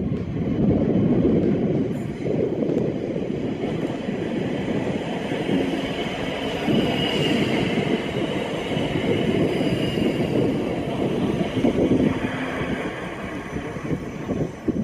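ScotRail Class 334 Juniper electric multiple unit running into the platform: a steady rumble of wheels on the rails, with a faint high-pitched whine around the middle.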